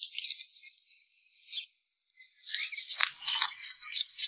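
Fish scaler scraping the scales off a golden threadfin bream on a wooden board: quick rasping strokes. They ease off for about a second and a half near the middle, then start again in a fresh run.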